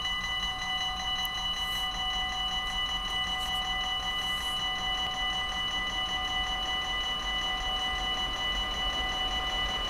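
Railway level crossing warning bell ringing in a rapid, steady rhythm while the barriers are down, the signal that a train is approaching.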